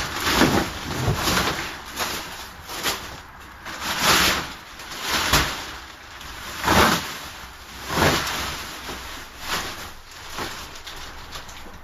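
Plastic wrapping being pulled and torn off a kayak: a string of loud crinkling rips about a second apart.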